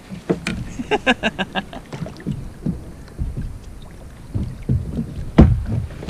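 A gaffed halibut thrashing at the side of a kayak: a rapid run of slaps and splashes about a second in, scattered knocks, and one heavy thump near the end.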